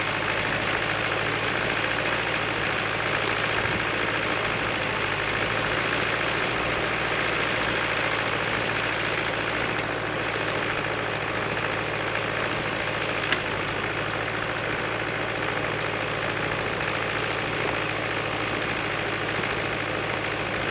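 International IH250d tractor's diesel engine running steadily at an even, low speed, with one brief sharp click about thirteen seconds in.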